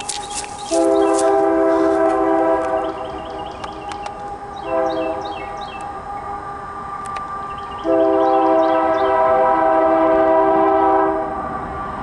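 Diesel freight locomotive's multi-chime air horn, the lead unit Union Pacific 5555 (a GE AC4400CW), sounding a chord in blasts: a long blast, a short one about four seconds in, then another long blast of about three seconds.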